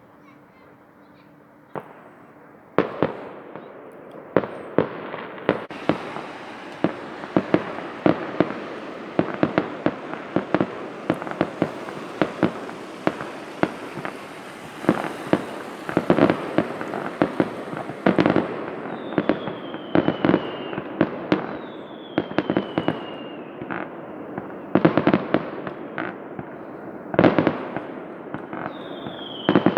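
Fireworks display going off: a dense run of bangs and crackling starts about three seconds in and keeps on, with a high hiss over the middle part and several short falling whistles in the second half.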